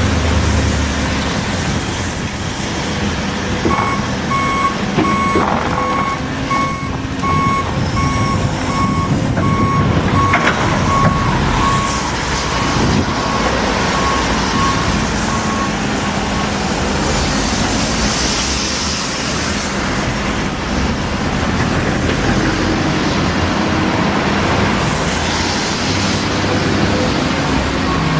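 Doosan excavator's engine running, with its travel alarm beeping in an even series from about four seconds in until a little past halfway. A short hiss comes later.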